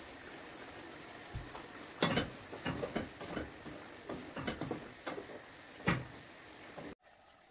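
Chicken livers sizzling in a hot non-stick frying pan, with a wooden spatula scraping and knocking against the pan as they are stirred, starting about two seconds in. Near the end the sound drops abruptly to a quieter steady hiss.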